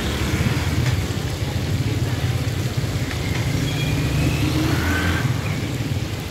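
Fish frying in large woks of hot oil at a street stall, a steady sizzle over a constant low rumble.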